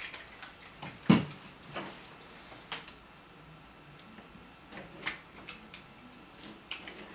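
A few separate clicks and light taps from handling a riqq as its softened fish skin is peeled off; the sharpest click comes about a second in, with fainter ones scattered after.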